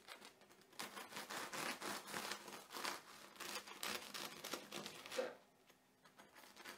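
Serrated bread knife sawing through the crisp rice-flour crust of a tiger bread (Dutch crunch) loaf: a dense run of crackling and crunching for about four seconds, then a pause and one more small crunch near the end. The crackle is the sign of a properly crisp crust.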